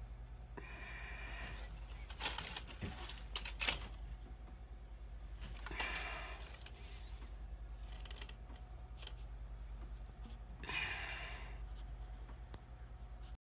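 Steady low hum with a cluster of sharp clicks and taps about two to four seconds in, and three short hissing rustles near the start, the middle and the end, as of a phone being handled.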